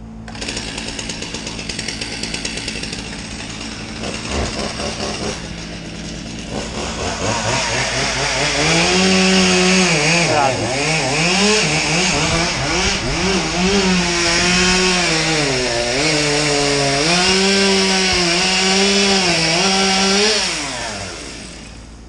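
Chainsaw cutting through a birch section. It runs lower at first, then from about seven seconds in it is at full throttle in the cut, its pitch dipping and recovering as it bogs under load, and it stops about a second before the end.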